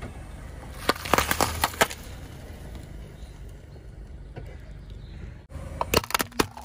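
Car tyre rolling over sheets of coloured plastic ice-cube bags, crushing them with a quick run of sharp cracks and pops, then a low rumble of the tyre on asphalt. Near the end, plastic funnels crack under the wheel in several sharp snaps.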